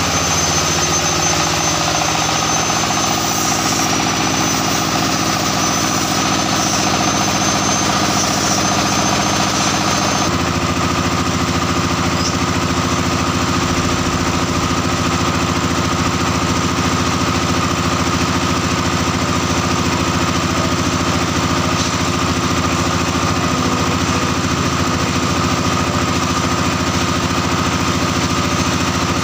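Single-cylinder diesel engine on a plaster pump machine, running steadily at idle with a knocking beat. The sound shifts abruptly about ten seconds in.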